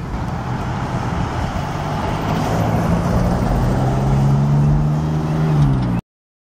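Diesel freight locomotive approaching, its engine's low drone and the rumble of the train growing louder, the drone dipping slightly in pitch near the end. The sound cuts off abruptly about six seconds in.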